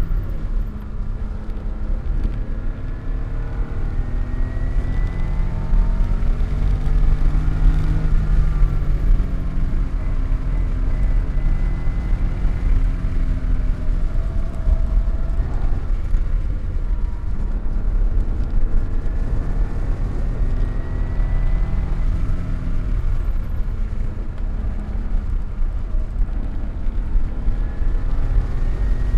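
Car engine being driven hard on a race track, its pitch repeatedly climbing under acceleration and dropping back, over a heavy low rumble.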